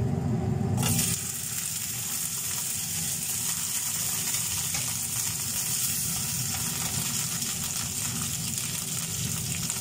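Minced-meat kababs sizzling in a little hot oil in a nonstick frying pan; the steady sizzle starts about a second in.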